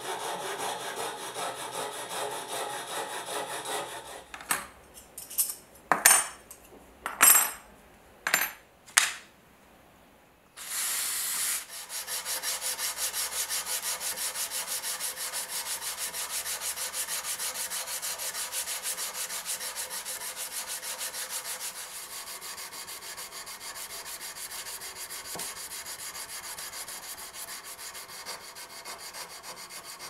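Hand sanding of a steel knife blade: an abrasive strip is rubbed quickly back and forth across the blade in a fast, even rhythm. Before that comes slower back-and-forth rubbing, then about six sharp knocks and a brief loud burst of noise.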